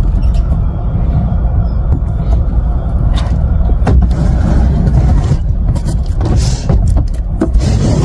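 Steady low rumble of a moving car, with a few light knocks.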